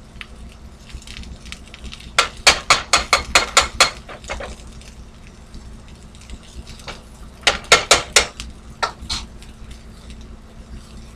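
A metal spoon clattering against a nonstick frying pan as sautéing onion pieces are stirred, in two runs of quick taps, one starting about two seconds in and another around seven and a half seconds, with a couple of lone taps just after. A low steady hum lies underneath.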